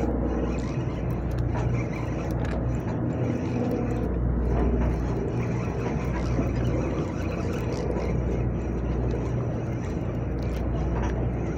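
A boat's engine running steadily: a low, even drone with a rushing noise over it.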